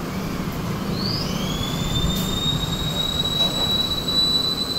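A high, steady whistling tone that glides up about a second in and then holds one pitch, over a steady background hiss.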